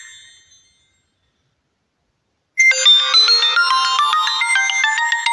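HTC Wildfire E2 smartphone's preset incoming-call ringtone: a fast melody of short notes that fades out in the first half second, then after about two seconds of silence starts over and plays on.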